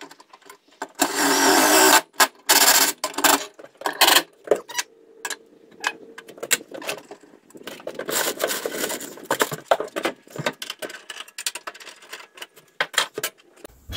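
Ratchet driving quarter-inch mounting screws in loud bursts of rapid rattling, the longest about a second in and another around eight seconds in, with short clicks between.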